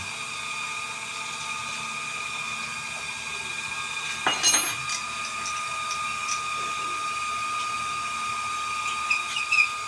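Metal-cutting machine tool running steadily with a high whine as it cuts through the steel tube stock for an air-rifle test tank. A short, sharper sound with a high ring comes about four and a half seconds in.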